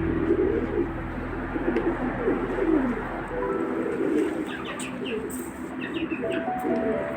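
Pigeons cooing, low rolling calls repeating and overlapping, with a few short high chirps from small birds in the second half.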